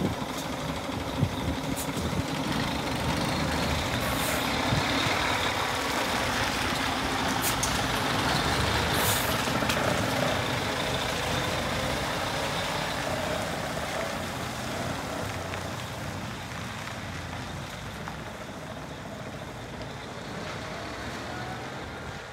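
Scania G440 heavy truck with a 13-litre inline-six diesel, driving past on gravel. The engine and tyre noise swells as it comes close and then fades as it moves away, with a few short hisses along the way.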